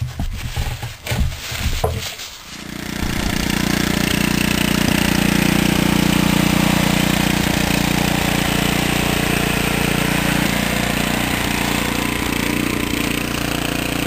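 A few light clicks and knocks. Then, about two and a half seconds in, an 8 HP Kohler single-cylinder engine on a Troy-Bilt tiller is heard running steadily at an even speed, now firing after its breaker points and carburetor were cleaned to cure a no-spark, no-start fault.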